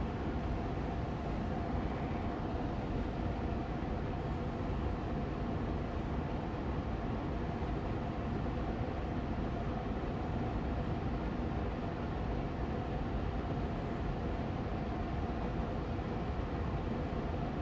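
Austin Air Allergy Machine air purifier fan running on medium speed: a steady, even rush of air with a low hum and a faint steady tone in it, unchanging throughout.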